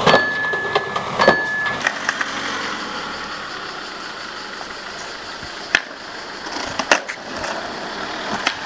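A car driving over a plastic skateboard lying on asphalt, with two short beeps near the start. The car's noise fades, then the board clacks sharply against the pavement a few times.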